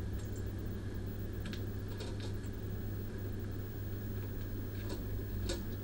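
Steady low hum of the IR rework setup, with a few faint light clicks as the molten through-hole chip is lifted out of the board with tweezers.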